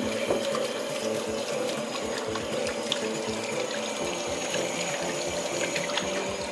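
Kitchen tap running steadily into a stainless steel sink as hands are rinsed under the stream, with light background music.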